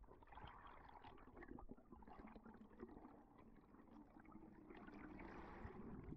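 Faint underwater ambience: a soft hiss of moving water dotted with light crackles and bubble sounds as the diver swims up through the water.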